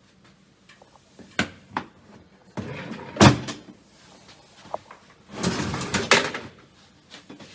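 Tool boxes and containers being handled and opened: two knocks about a second and a half in, then a scrape with a loud clunk just after three seconds, and another scrape ending in a clunk around six seconds.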